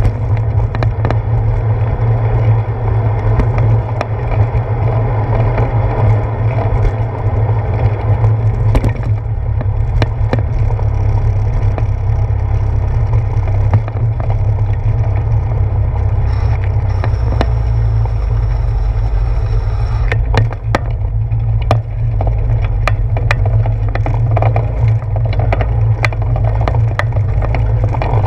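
Bicycle riding noise heard through a handlebar-mounted GoPro housing: a steady low rumble of tyres on the wet path, with frequent sharp knocks and rattles as the wheels roll over bumps and wooden boardwalk planks.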